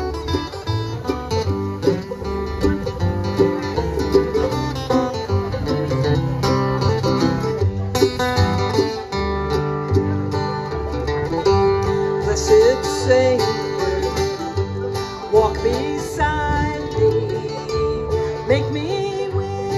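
Live acoustic bluegrass band playing: banjo, mandolin and acoustic guitar picking over a walking upright bass.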